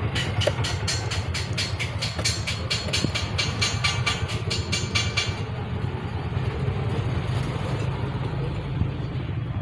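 Puppy lapping milk from a shallow steel bowl: quick wet laps, about five a second, that stop a little past halfway. A steady low rumble runs underneath.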